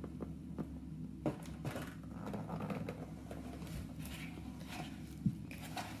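Fingers squishing and stirring a wet baking-soda paste in a bowl, with soft scraping and scattered small clicks, and a single sharp knock about five seconds in, over a steady low hum.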